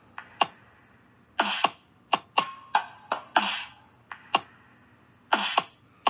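Sparse electronic drum beat: sharp kick-like hits that drop in pitch, alternating with short noisy snare- or clap-like bursts, with a brief pause about four and a half seconds in.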